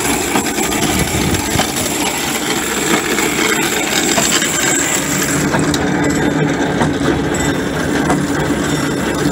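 Chain-driven twin-disc lime spreader running while spreading lime: its roller-chain drive and spinning spreader discs rattle and clink steadily, with an Ursus tractor's diesel engine running underneath.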